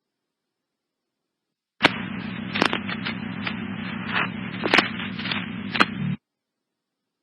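Fire-department radio transmission on a scanner with no words in it: a steady low hum and static hiss, broken by several sharp crackling pops. It switches on abruptly about two seconds in and cuts off abruptly about four seconds later, as a radio does when a mic is keyed and released without speaking.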